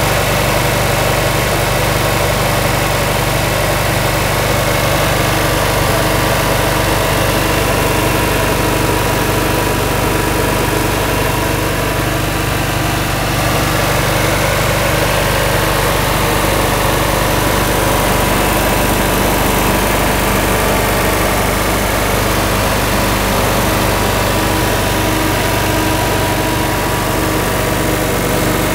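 Generac IM-72G generator's engine running steadily at constant speed.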